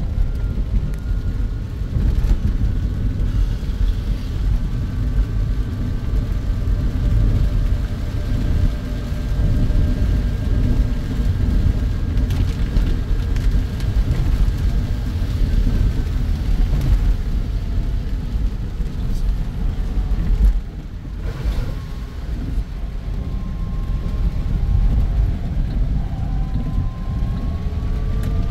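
Car cabin noise while driving on a wet road: a steady low rumble of tyres and engine, with a faint engine note that slides up and down with speed. The sound dips briefly about two-thirds of the way through.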